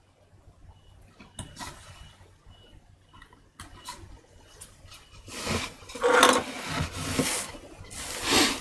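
A few faint knife clicks on a wooden print block, then from about five seconds in a loud scraping and rubbing of wood, in several swells, as the block is shifted and turned on the bench.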